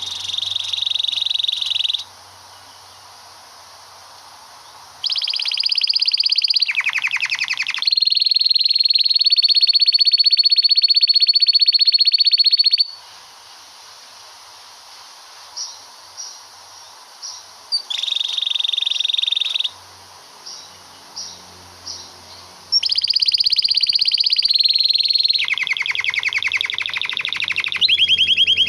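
Male domestic canary singing its long rolling song: rapid high trills held for several seconds each, the longest about five seconds, with short pauses broken by a few single chips.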